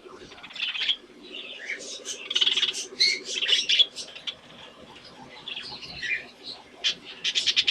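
Budgerigars chirping and warbling in irregular bursts of high notes, ending in a fast run of clicking chatter near the end.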